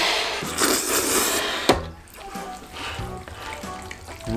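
Jajangmyeon noodles slurped for about a second and a half, then a sharp click, over quiet background music.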